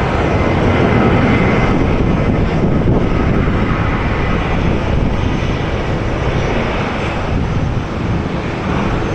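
Airplane taking off: loud, steady engine noise with a rushing hiss, easing a little near the end.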